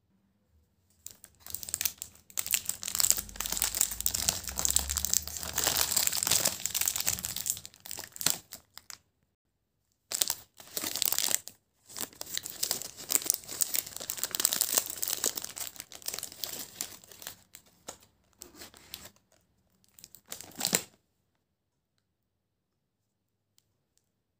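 Plastic snack packaging, the inner wrapper of a pack of fig roll biscuits, crinkling and tearing as it is handled and pulled open, in two long stretches with a short pause between, stopping suddenly near the end.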